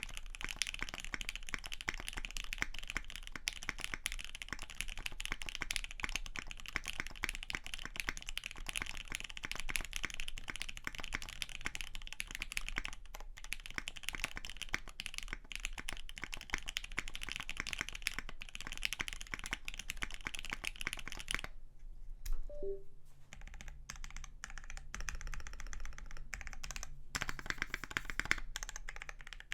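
Fast, continuous typing on a custom GS60 keyboard with lubed Gateron Ink Black linear switches on a UHMWPE plate and GMK keycaps. About two-thirds of the way in the typing thins to a few scattered keystrokes with a single soft knock, then picks up again briefly.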